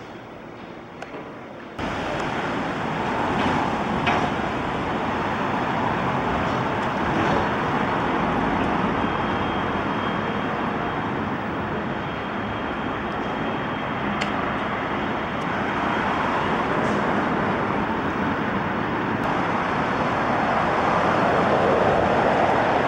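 Loud, steady vehicle and traffic noise, a dense city-street rumble that comes in abruptly about two seconds in and holds steady.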